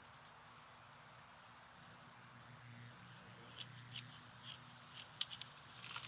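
Quiet animated-film sound-effects track: a faint hiss with a low hum in the middle, and a scatter of small clicks and ticks in the second half.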